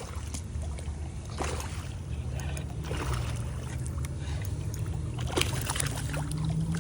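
A boat's motor runs steadily with a low hum, with scattered light clicks over it. Near the end a steady tone rises slowly in pitch.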